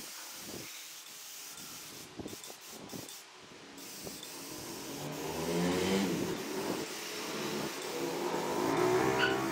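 Gravity-feed spray gun hissing as it sprays wood stain, the hiss cutting out briefly twice as the trigger is released. About halfway through a motor hum with a wavering pitch comes in and grows louder, drowning the spray.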